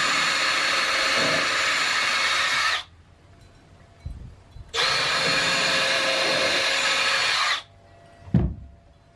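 Cordless drill running into a wooden board twice, about three seconds each time, with a steady whine, each run cutting off abruptly. A short knock follows near the end.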